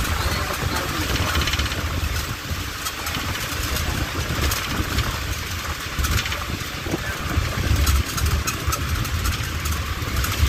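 Inside a moving bus: steady low engine rumble and road noise, with frequent light clicks and rattles.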